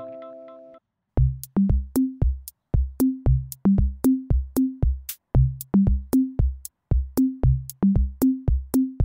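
Background electronic music: a held synth chord fades out within the first second, then a drum-machine beat plays on its own.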